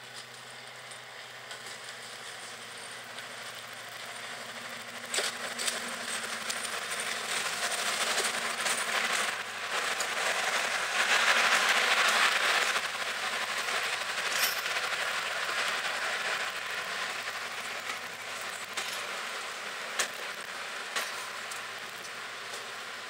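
A BR Class 55 Deltic diesel locomotive drawing in and passing close by, its engine noise growing and peaking about halfway through. Its coaches then roll past with a few sharp clicks of wheels over rail joints.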